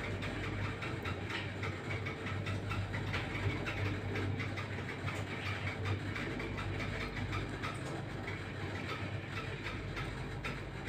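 Car of a 1986 KMZ passenger elevator travelling in its shaft: a steady low hum with light rattling and clicking from the car and its doors.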